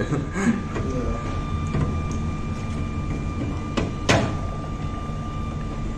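A PET-bottle filament maker (filament extruder with a motor-driven spool winder) running: a steady motor hum with a thin, constant high tone. Two sharp clicks come close together about four seconds in.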